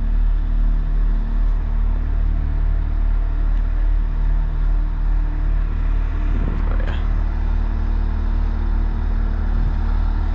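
Large engine running at a steady speed, a low even drone with a slight regular pulse.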